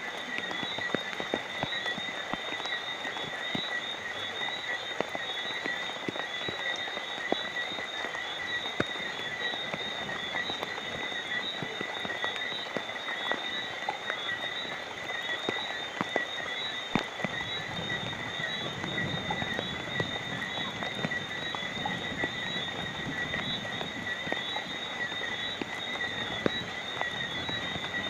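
Rain falling at night, with many scattered drops ticking, over a steady high-pitched chorus of night creatures.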